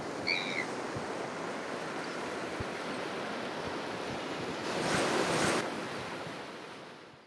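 Ocean surf washing onto a gravel beach, a steady wash with one wave coming in louder about five seconds in. A brief high chirp sounds near the start, and the sound fades out at the end.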